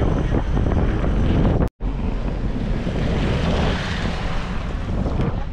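Wind buffeting the microphone: a loud, steady rumbling noise, broken by an abrupt cut to silence for a split second about two seconds in.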